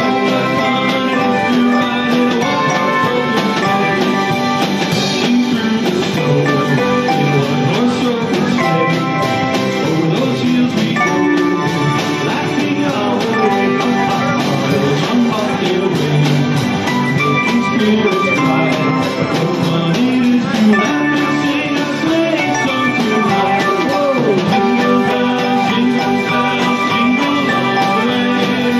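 Live band playing a tune with trumpet, guitars and drum kit.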